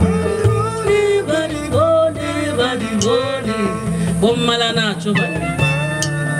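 Live band playing jazz-inflected music: a melody bending in pitch over steady bass notes, with a long held high note coming in about five seconds in.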